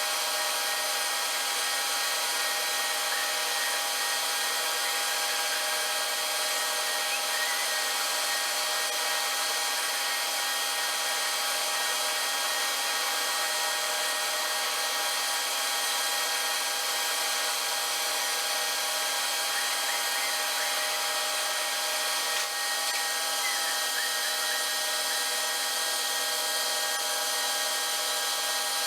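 Metalworking machine tool running steadily while cutting steel: a continuous rubbing, sawing-like cutting noise over a steady machine whine, unchanging in level.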